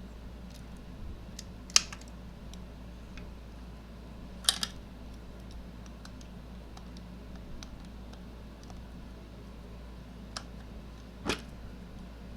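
Light clicks and clinks of hand tools and metal scooter parts being handled while working the rear wheel loose, with three sharper clacks spread through.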